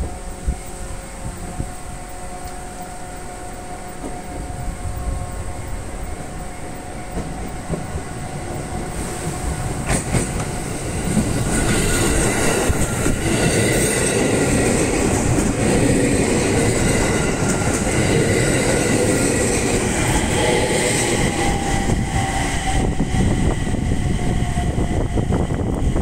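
JR East 701 series four-car electric train approaching and passing over a level crossing, its wheels clattering on the rails, much louder from about halfway through as the cars go by. The level crossing's warning alarm rings steadily underneath.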